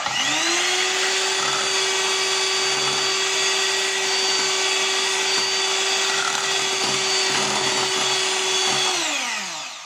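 Aceline electric hand mixer beating eggs and milk: its motor spins up, runs with a steady whine, and winds down with a falling pitch near the end.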